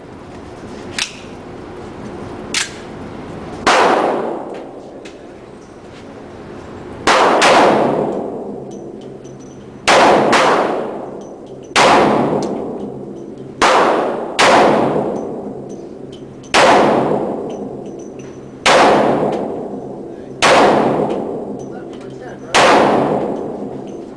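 About ten gunshots fired at irregular intervals, each a sharp crack followed by a long, fading echo. Two smaller sharp clicks come in the first few seconds.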